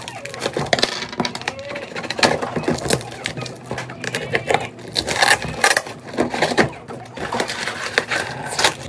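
Rustling and clattering of a delivery package being handled and unwrapped, with scattered knocks and clicks.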